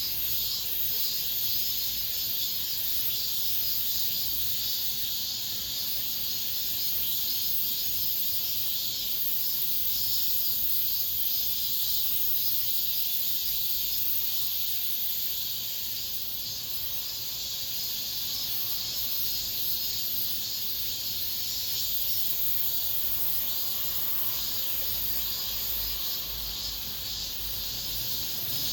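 Cicadas singing in a dense, unbroken chorus, a steady high buzz that holds its level throughout.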